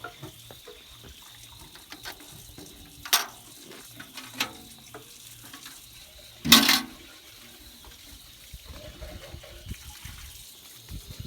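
Liquid splashing in a few short, sharp splashes, the loudest about six and a half seconds in.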